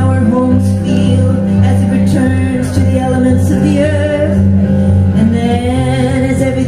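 Live music: a woman singing over sustained chords played on a Roland digital piano.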